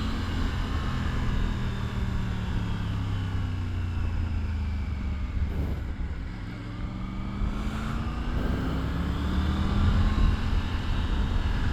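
Triumph Tiger 900's three-cylinder engine under way, with wind rushing over the microphone. The engine note falls as the bike slows, dips lowest about halfway through, then climbs again as it picks up speed.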